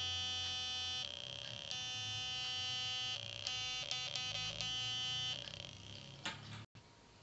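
Electronic buzzing tone from a small sound device, coming in stretches of one to two seconds with short gaps. A quick run of short beeps follows about three and a half seconds in, then one more stretch. It stops after about five seconds, leaving faint room noise and a single click.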